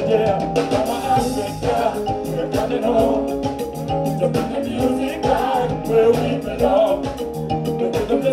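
Live band music with a steady drum beat, bass and keyboards, and a male singer on a microphone.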